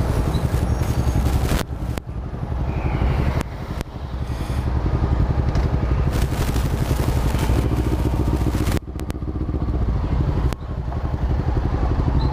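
Honda CB500's parallel-twin engine running under way, with a steady low pulsing note and rushing air over it. The engine note dips sharply and briefly about four times.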